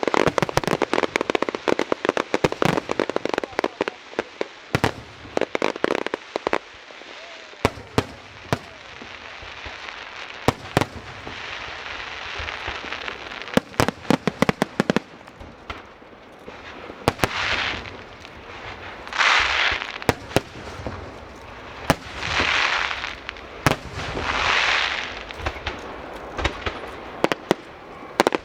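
Fireworks going off: rapid volleys of sharp bangs and crackles for the first several seconds, then scattered single bangs. In the second half come four separate hissing swells, each about a second long.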